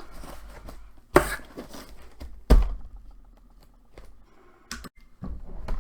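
Knocks from objects being handled: two sharp thunks about a second and a half apart, then a couple of fainter taps near the end.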